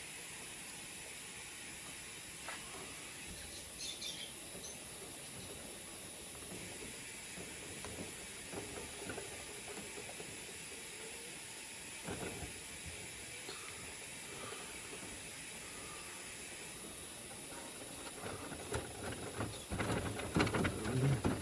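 Steady hiss with a few faint clicks and rustles from hands handling a new adhesive vending-machine keypad. About nineteen seconds in comes a stretch of louder, irregular rustling and tapping as the keypad is pressed into place.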